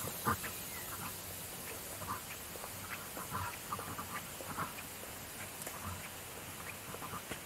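Short, irregular animal calls, a few each second, over a steady high hiss.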